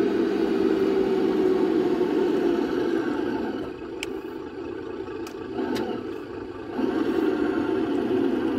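Golf cart running under the dash cam, a steady mechanical hum that eases off and goes quieter for about three seconds midway, then picks up again. Three light clicks come in the quieter stretch.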